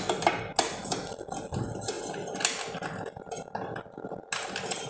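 Irregular clicks, knocks and light clatter of a Kenwood sandwich maker's removable non-stick plate and hinged lid being handled and fitted, plastic and metal tapping together.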